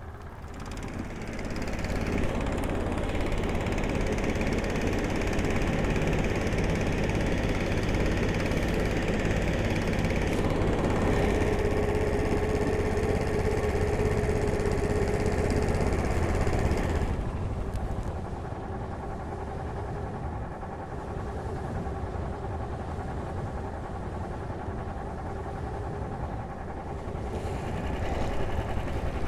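Snowmobile engine running. It grows louder about a second in and holds there, eases to a lower, quieter running about halfway through, and picks up again near the end.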